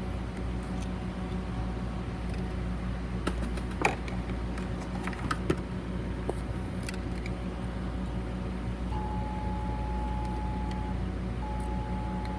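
Small metal tool clicking and scraping a few times against the intake port and valves of a 2013 VW Golf engine, working loose carbon deposits, over a steady background hum. A thin steady tone comes and goes in the second half.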